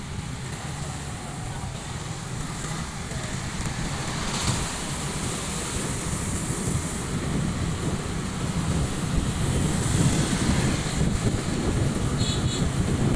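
Wind rushing over the microphone and the low rumble of traffic while riding along a street, growing louder toward the end.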